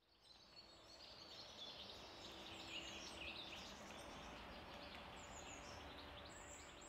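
Faint outdoor ambience with small birds chirping and twittering, fading in from silence at the start.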